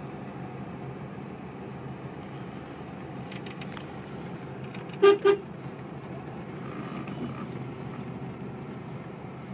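Two short blasts of a vehicle horn about five seconds in, over a steady background of road traffic noise.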